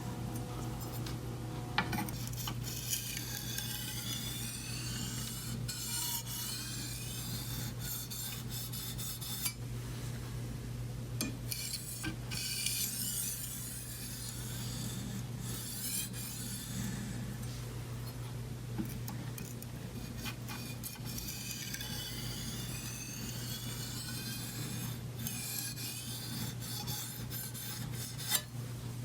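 Chef's knife edge stroked back and forth over a fine black Arkansas whetstone in alternating strokes, a continuous scraping hiss: light deburring strokes at the finest stage of sharpening. A low steady hum runs underneath, and there are a couple of sharp clicks.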